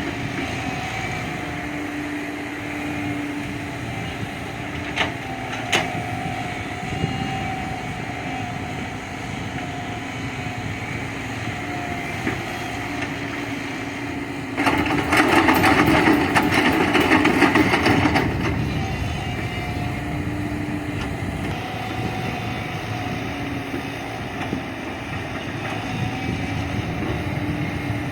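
JCB 3DX backhoe loader's diesel engine running under working load, its pitch rising and falling. There are two sharp knocks about five seconds in, and a much louder noisy stretch lasting about three and a half seconds in the middle.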